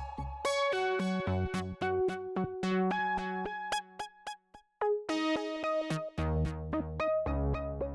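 Background music: an electronic track with synthesizer and keyboard notes over a bass line and drum-machine beat, briefly dropping out about halfway through.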